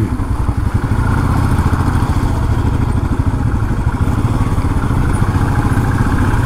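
Royal Enfield motorcycle engine and exhaust running steadily under way, a dense pulsing low rumble, on a rough, broken off-road track.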